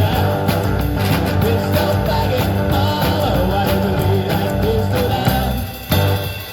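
Busking band playing an upbeat rock-and-roll song live, with a strong bass line and a wavering melody line over it; the sound dips briefly about six seconds in.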